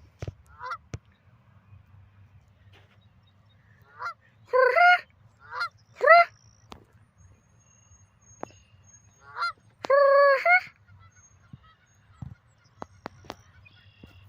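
Canada geese honking in scattered calls with quiet gaps between: a run of honks about four to six seconds in, and a longer honk near ten seconds.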